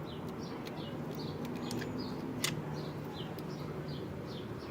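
A bird chirping over and over, short high chirps that drop in pitch, about three a second, against a steady low background rumble. A single sharp click about two and a half seconds in.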